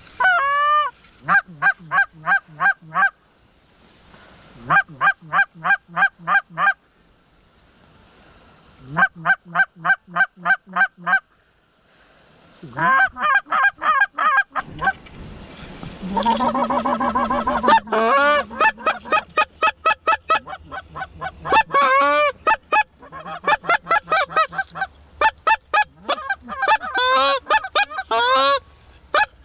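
Goose honking in quick runs of short, clipped honks, about five a second. The first runs last a few seconds with short pauses between them, and from about halfway through the honking is almost unbroken.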